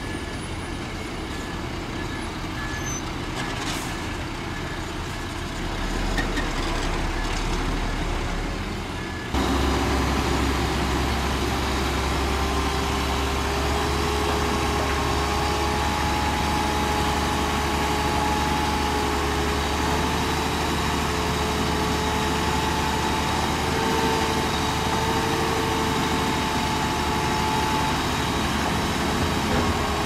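Heavy diesel earthmoving machinery running steadily. About nine seconds in the sound jumps suddenly louder, and from then on a steady whine sits over the engine rumble.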